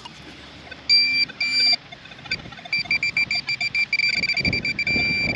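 Handheld metal-detecting pinpointer beeping at one fixed pitch: two short beeps, then pulses that come faster and run into an almost steady tone as it closes in on a coin in the bottom of the dug plug. Soil and turf are handled with low thumps and rustling.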